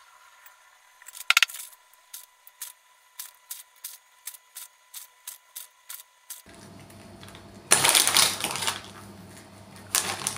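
A run of light, sharp clicks, a few a second, then the crinkling rustle of a plastic bag of flaked almonds being handled, loudest twice near the end.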